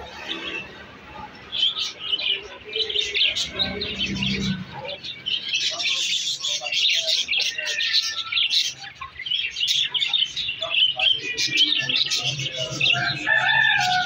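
Caged aviary birds chirping and twittering in a dense, rapid chorus. A few clearer, longer whistled notes come in near the end.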